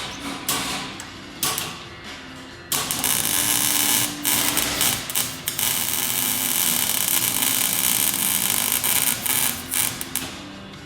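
Welding arc crackling and hissing: a few short bursts, then one continuous weld starting suddenly about three seconds in and stopping shortly before the end.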